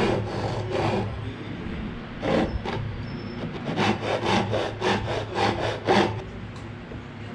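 Hand saw cutting through wood in a series of strokes, a few spaced out at first, then a quicker run of about two strokes a second before it stops.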